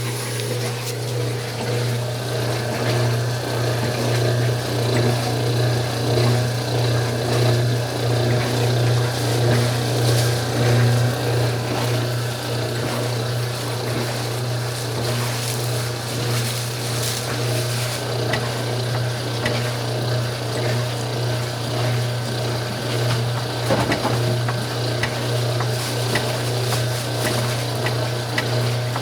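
Old Wanke washing machine running: its motor gives a steady low hum under the swish of water in the tub.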